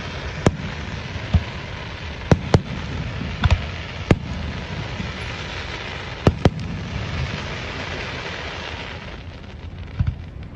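Aerial fireworks shells bursting overhead: about nine sharp bangs at uneven intervals, some in quick pairs. A steady hiss runs between them.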